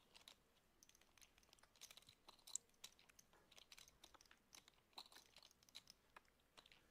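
Near silence with faint, irregular clicking of poker chips being fingered and stacked at the table.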